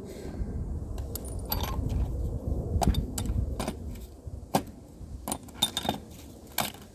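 Small metal objects clinking and clicking in a quick irregular series, as of hand tools being handled to reach a 13 mm bolt, over a low rumble that fades about halfway through.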